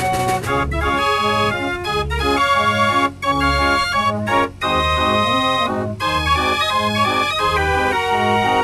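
Mechanical fair organ playing a tune on its wooden pipes over a steady, regularly pulsing bass. The music drops out for a moment about three times.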